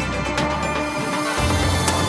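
Background music with sustained deep bass notes and two sharp percussive hits; the bass grows louder about two thirds of the way in.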